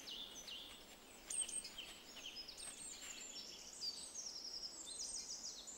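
Faint woodland birdsong: small birds chirping and whistling in short high notes, with a quick trill of repeated notes about four seconds in.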